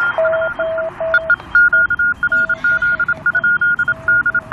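Morse code on the 40-metre amateur band, heard through a Tecsun PL-368 shortwave receiver's speaker. Two CW stations key at once: a higher-pitched tone and a lower one, each beeping in its own dot-dash rhythm, over faint band hiss.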